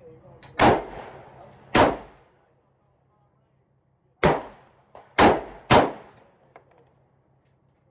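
Five gunshots from a firearm at a shooting range, each sharp with a ringing, echoing tail: two about a second apart, then after a pause a quick run of three.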